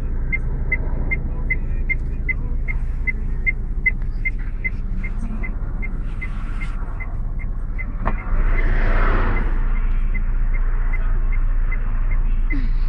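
A car's indicator flasher ticking steadily, about three ticks a second, over the low rumble of the car and passing motorway traffic. About eight seconds in there is a knock and the traffic noise gets louder as a car door is opened.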